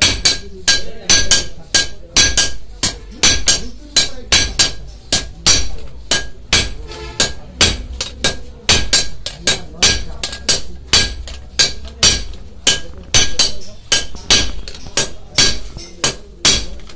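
Hand hammers forging a red-hot steel knife blade on an anvil: a steady run of sharp metal-on-metal blows, about two to three a second, each with a short ring.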